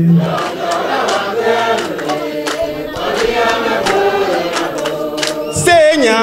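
Chant-like singing by several voices in long held notes, with several pitches sounding at once.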